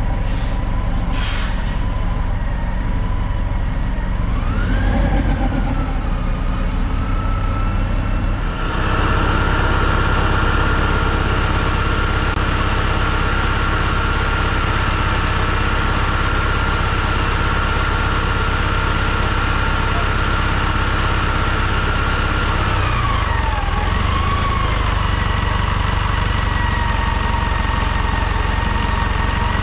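1998 New Flyer C40LF transit bus's compressed-natural-gas engine idling steadily, with a steady high whine above the engine note that rises briefly about five seconds in and dips and wavers near the end. Two short hisses in the first two seconds.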